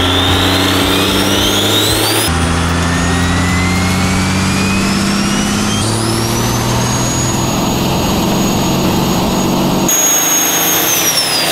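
High-mileage turbocharged Cummins diesel at full throttle on a chassis dyno, with a turbo whistle that rises, holds high, and falls away near the end as the throttle comes off; the sound jumps abruptly a few times where pulls are joined. The owner finds the run well down on power, the engine running out of fuel.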